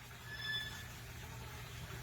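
A Pesquet's parrot gives one short, clear call about half a second long, over a steady low hum.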